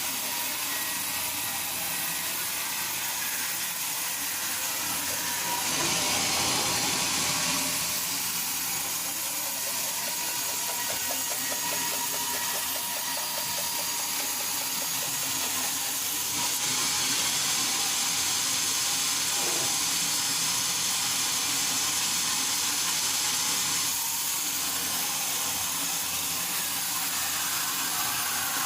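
Sawmill saw and machinery running with a steady hiss, louder for a stretch about six seconds in and again from about sixteen to twenty-four seconds in.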